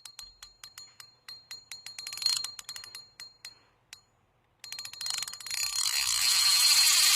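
Rapid metallic ratchet clicking, about five clicks a second with a ringing edge, stopping about four seconds in. About half a second later a loud, steady hiss rises and holds.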